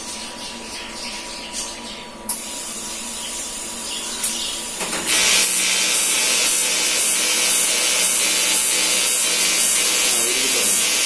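TIG welding arc on aluminium, a steady buzzing hiss that starts about five seconds in, after a click and a softer hiss, and cuts off at the end.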